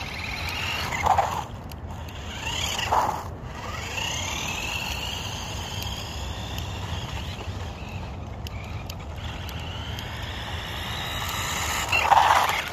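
Adventure Force Trail Chaser RC car's small electric motor whining as it drives around, the whine sweeping up and down in pitch and louder each time the car passes close: about a second in, about three seconds in, and near the end. A steady low rumble runs underneath.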